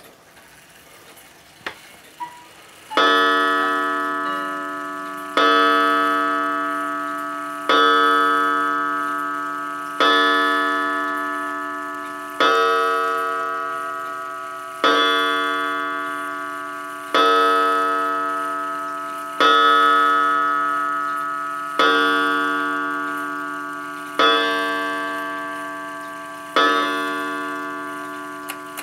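Smiths Enfield 8-day mantel clock striking the hour at twelve on its gong: slow ringing strokes about two and a half seconds apart, each fading before the next. A couple of light clicks from the movement come just before the first stroke.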